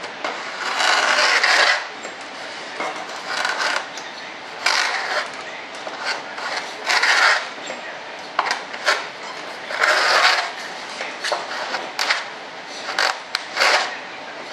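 A hand shaping tool worked along the edge of a model-jet wing plug in several uneven strokes, each under about a second long. A few short sharp clicks and taps come in the second half.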